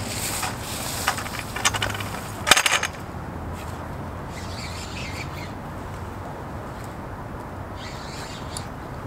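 Spinning rod and reel being cast and retrieved: a swish and line rasp with sharp reel clicks in the first three seconds, then two short quieter bursts of the reel being cranked, over a steady low rumble.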